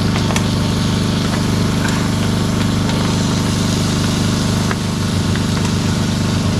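A steady low drone like an idling motor, with a few light metallic clicks of tongs against a bowl and a hot plate as octopus pieces go on.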